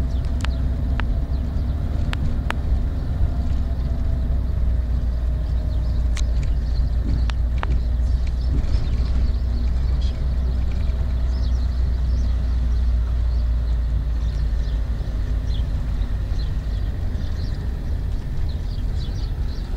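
Steady low rumble of a car's engine and tyres on an unpaved dirt road, heard from inside the cabin. A few sharp clicks come in the first several seconds.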